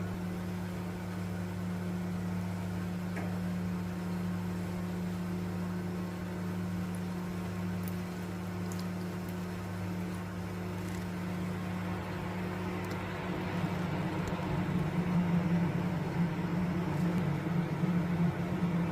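A steady low electrical hum, as from a motor-driven appliance, runs throughout. About thirteen seconds in, a rougher, uneven noise joins it and the sound grows a little louder.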